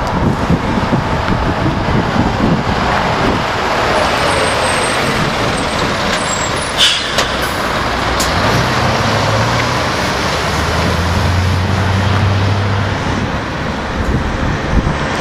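Scania 164L 580 V8 truck engine with a side-exit exhaust pipe running as the truck approaches and passes close by, then pulls away, its low engine note rising to the fore in the second half. A short hiss about seven seconds in.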